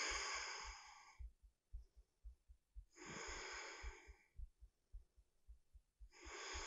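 A woman breathing slowly and steadily while holding a yoga balance pose, faint, with three long breaths about three seconds apart.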